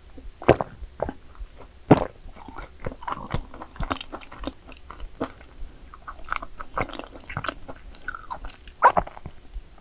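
Someone chewing and biting into yakgwa cookies, a run of crunchy, irregular mouth sounds. The sharpest bites come about half a second in, just before two seconds, and near the end.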